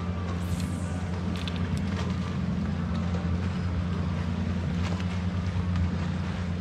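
Steady low hum of a fishing boat's motor running, even in level, with a few faint clicks over it.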